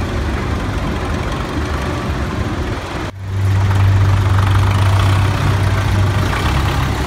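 Farm tractor's diesel engine idling, a steady low hum that becomes louder and steadier about three seconds in.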